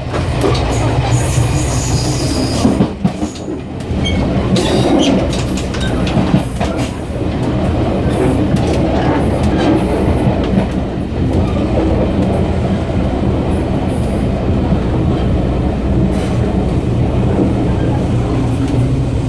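Diesel multiple unit running, heard at the gangway between cars: a steady low diesel drone under the clickety-clack of wheels over the rails and the clatter of the gangway connection, with a brief lull about three seconds in.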